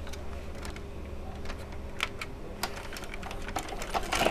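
Toshiba M751 VCR mechanism working with the lid off: irregular small plastic-and-metal clicks over a low motor hum that stops about two seconds in, with a louder run of clicks near the end.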